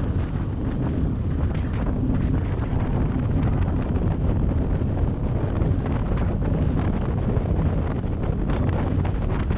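Wind buffeting the microphone on a 26-foot Cheetah Wildcat powerboat running at cruising speed, with the boat's engine and the hull running through choppy water underneath. Steady throughout.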